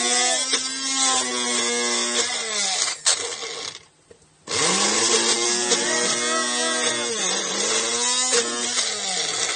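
Personal bullet-style blender motor whirring as it purees pumpkin chunks, its pitch sagging now and then under the thick load. It runs in two pulses, stopping for about half a second near four seconds in, then starting again.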